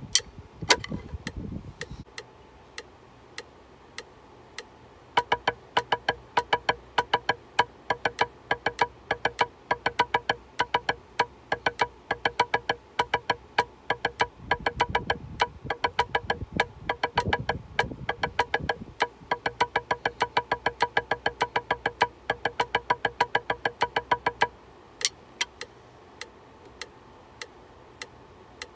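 Drumsticks playing a rudiment exercise on a practice pad in time with a steadily clicking metronome. A short run of strokes stops about two seconds in, the metronome clicks on alone, and the sticks come back in for about twenty seconds before stopping again.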